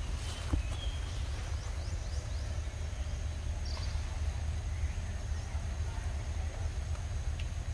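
Outdoor ambience: a steady low rumble with faint, high, short chirps, a run of them falling in pitch about a second and a half in, and a few light clicks.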